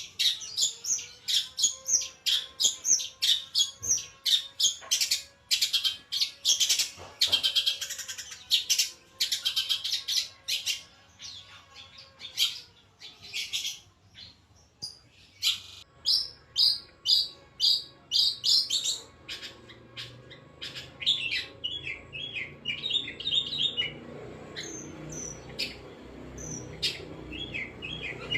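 Caged long-tailed shrike (cendet) singing: long runs of rapid, sharp high chirps, thinning to scattered notes near the end.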